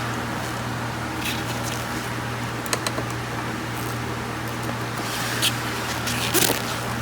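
Steady low hum of bench equipment with a few light clicks and scrapes of small tools, from hand work on a power-supply circuit board during a capacitor replacement.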